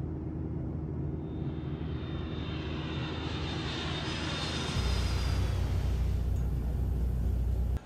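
Jet airliner engines heard from inside the cabin: a steady hum with a higher whine in flight. About five seconds in it gives way to a louder, deeper rumble.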